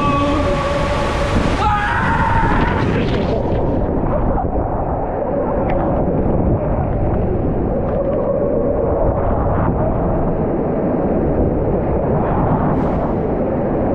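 Rushing water and the rider sliding down the Tornado waterslide's tube, a loud steady roar of water noise on the camera's microphone. About three seconds in, the sound turns duller and more muffled.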